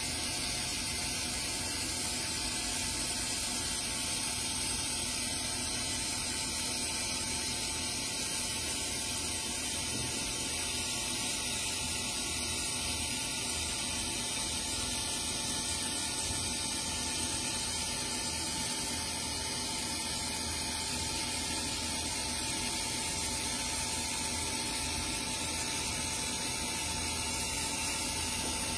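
Laser marking machine running steadily while it frosts a glass mirror: a constant hiss with a faint steady hum underneath.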